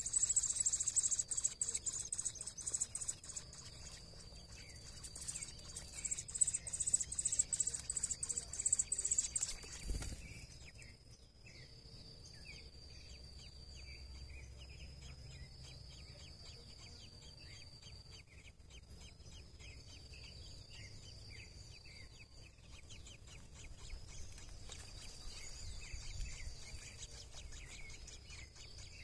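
Thrush nestlings begging with rapid, high-pitched cheeping in two spells over the first ten seconds while being fed, then falling quiet after a single knock. A steady, high insect trill runs underneath.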